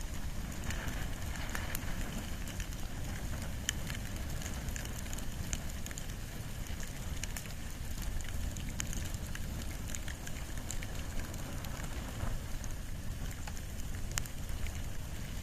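Bonfire of wood and bamboo burning, with scattered sharp crackles and pops over a steady low rumble.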